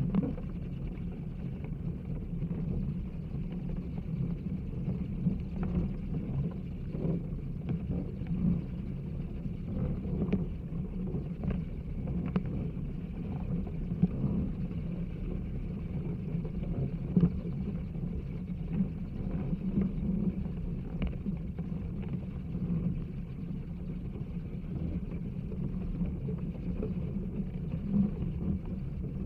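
Hundreds of bats flying out of a roost: a dense, steady low whirr of many wingbeats, with scattered clicks and a faint high hiss above it.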